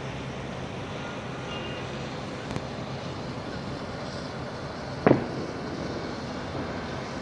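Steady hum of city traffic heard from high above the street, with a small click midway and one loud, sharp bang about five seconds in that rings briefly.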